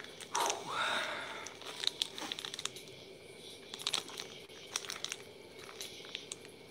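Plastic Oreo cookie wrapper crinkling and tearing as it is opened by hand, with scattered sharp crackles. The loudest stretch is in the first second.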